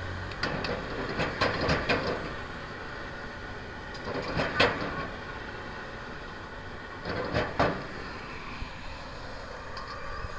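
Stir-frying in a wok over a gas burner: a steady hiss of the flame and sizzling food, broken every few seconds by a metal ladle scraping and clanking against the wok, loudest about four and a half seconds in.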